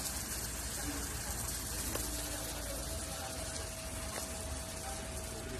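Crowd of onlookers talking indistinctly over a steady rushing background noise with a low rumble and a faint steady hum.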